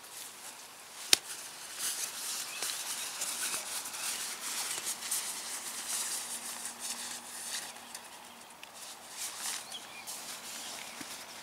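Nylon fabric rustling and crinkling in irregular handfuls as a bag is stuffed into a stuff sack, with one sharp click about a second in.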